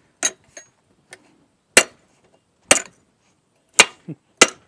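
A blacksmith's hammer striking a hand punch held on hot steel over the anvil's pritchel hole, driving the punch through the bar. There are five sharp metal-on-metal blows about a second apart, the last two closer together.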